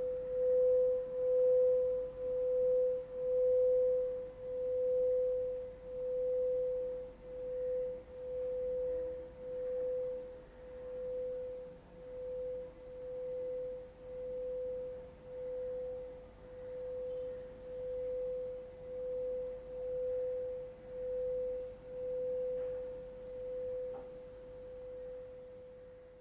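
Singing bowl kept sounding by rimming: a single steady tone with a slow, even pulsing wobble about once a second, starting to die away near the end.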